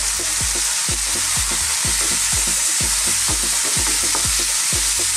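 Broccoli and fried tofu sizzling hard in a wok over high heat with freshly added soy sauce, being stirred and tossed with a wooden spatula: a loud, steady sizzle. Background music with a steady beat, about two beats a second, runs underneath.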